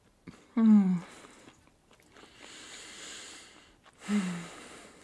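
A woman hums 'mmm' twice with her mouth closed, in enjoyment, while chewing a red-caviar sandwich. Each hum is short and falls in pitch, one about half a second in and one near the end. Between them comes a long breath out through the nose, with a few faint chewing clicks.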